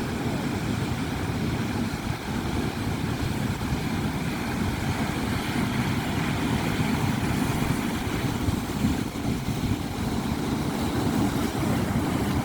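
Sea waves, a steady deep rush of surf that barely rises or falls.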